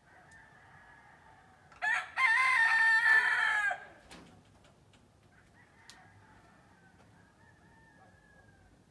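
A rooster crows once, loudly, about two seconds in: a short first note, then a long held crow of about two seconds. Fainter calls are heard further off before and after it.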